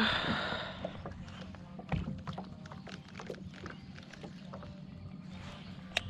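A cast with a baitcasting reel: a short hiss of line running off the spool in the first second, then scattered faint clicks and taps.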